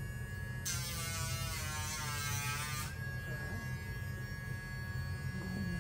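Dremel rotary nail grinder running with a steady high whine. About a second in it is pressed to a dog's toenail for around two seconds, giving a gritty grinding noise as the motor's pitch sags. It then rises back to the free-running whine.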